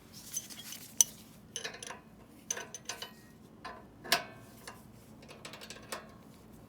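Metal hand tools clinking and clicking irregularly on the chain-adjuster bolts of a mini bike during a chain tension adjustment. There are two sharper clanks, one about a second in and one about four seconds in.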